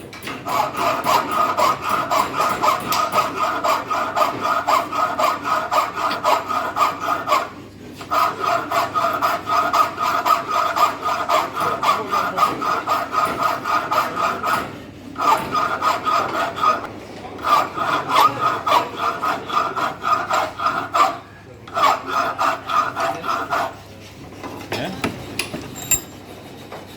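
Hand file rasping across a mild-steel padlock body in quick back-and-forth strokes, rounding over a radius. It runs in several spells with short pauses and stops about 24 seconds in.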